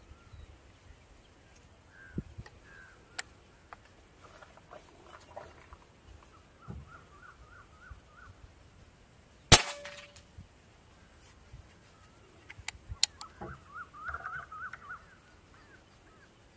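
A single sharp shot from a .177 Precihole PX100 PCP air rifle about halfway through, with a few small clicks of the rifle being loaded and cocked before and after it. Birds call faintly a few times.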